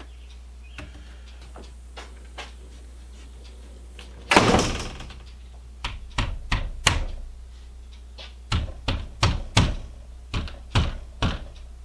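Sharp knocks on a wooden window frame as the newly installed window is tapped square in its opening. A louder rattling thud comes about four seconds in, then a run of about four knocks and a second run of about seven.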